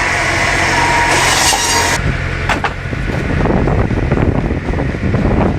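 A firewood processor running, a dense mechanical noise with a steady whine from its saw. About two seconds in it switches abruptly to a lower, rougher machine noise with a few sharp knocks.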